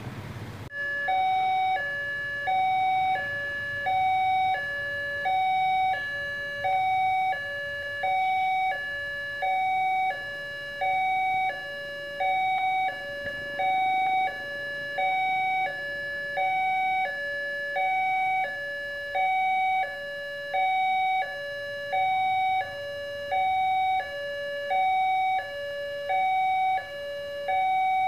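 Railway level-crossing warning alarm from the signal's loudspeaker, sounding a two-tone hi-lo chime: a higher and a lower note alternate evenly, each held about three-quarters of a second, warning that a train is approaching. It cuts in abruptly about a second in, after a brief rumble of street traffic.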